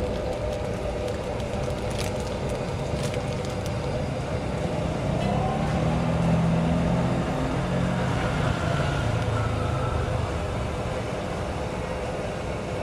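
Street traffic noise: a steady rumble with a motor vehicle's engine passing, loudest about six seconds in. A few sharp clicks sound early on.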